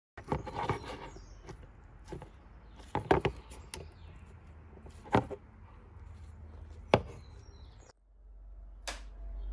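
Scattered sharp knocks and clicks of hard parts and tools being handled, over a low steady hum. The hum is stronger after a cut about eight seconds in.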